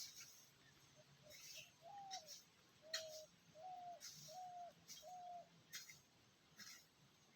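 A bird calling faintly: a run of about six short, even-pitched notes, evenly spaced over a few seconds. Scattered soft clicks and ticks occur throughout.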